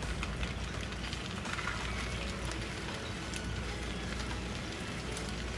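Udon noodles, pork and greens sizzling in a hot nonstick pan as dark soy sauce goes in and they are stirred: a steady crackling hiss with light clicks from the spoon.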